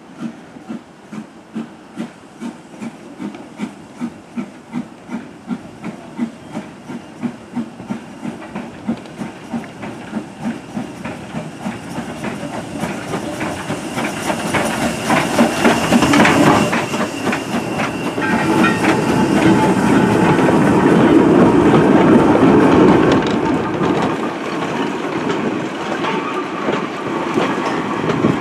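WD Austerity 0-6-0 saddle tank steam locomotive pulling away with a goods train: its exhaust beats start at about two a second and quicken as it gathers speed. It is loudest as the engine passes, with a burst of steam hiss, and then the wagons' wheels clatter by.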